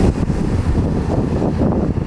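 Hyundai excavator's diesel engine running under working load, a loud, uneven low rumble.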